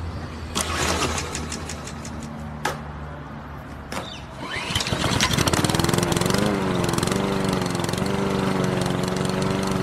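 Lawn mower engine being pull-started: a few short knocks, then it catches about four and a half seconds in with a rattle and keeps running steadily.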